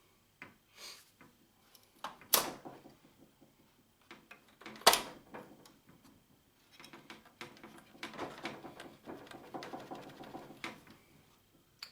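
Metal parts of an industrial label printer being handled and taken apart: scattered clicks and clunks, with two sharp knocks about two and five seconds in, then a busier stretch of small rattling clicks.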